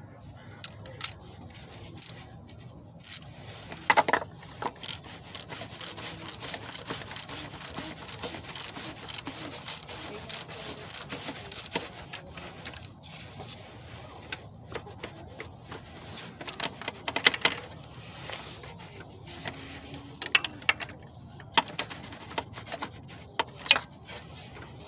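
Metal hand tools and parts clinking, clicking and rubbing during work on the oil filter housing, with a long stretch of rapid clicking from about a quarter of the way in to the middle and scattered sharper knocks.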